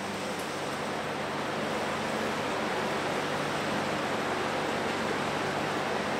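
A steady rushing background noise with a faint low hum, swelling a little over the first couple of seconds and then holding even.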